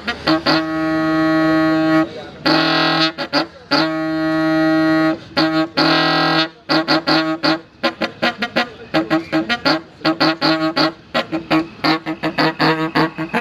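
A car horn sounding at one steady pitch: two long blasts in the first six seconds, then a fast run of short honks, about three or four a second.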